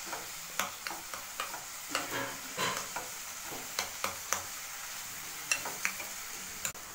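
Boiled potatoes and cauliflower being mashed by hand in a bowl: irregular soft clicks and crackles, a few every second. Under them, a steady faint sizzle from the pan of tomatoes and onions frying on the stove.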